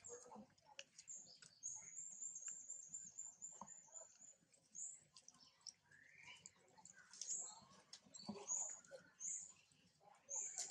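Faint high-pitched animal chirps and squeaks: a quick run of about ten chirps in the first few seconds, a rising squeak midway, then scattered short squeaks, over light clicking and rustling.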